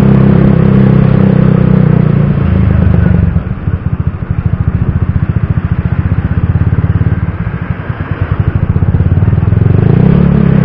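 Motorcycle engine running while the bike rides slowly through town. The engine note is steady for the first few seconds, then drops to a lower, lumpy putter from about three seconds in, and picks up again near the end.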